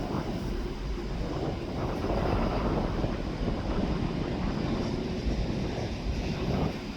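Wind buffeting the microphone: an uneven low rumble that swells and fades.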